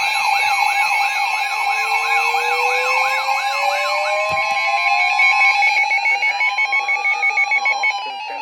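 Several siren and alert sounds layered at once: a fast electronic yelp sweeping up about three times a second that stops about four seconds in, and a slow wail that rises in pitch until about seven seconds in and then falls, over steady held alert tones.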